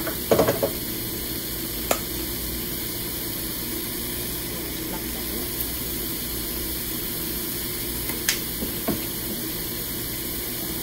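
Sliced mushrooms, onion and green chili sizzling in a stainless steel skillet, a steady frying hiss, with a few light knocks near the start and again about eight seconds in.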